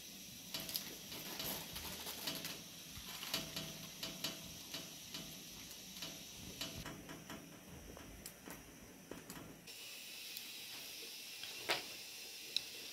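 Hand-knotting a carpet on an upright loom: small irregular clicks and taps as yarn is worked onto the warp strings and cut, over a faint steady hiss. Two sharper clicks come near the end.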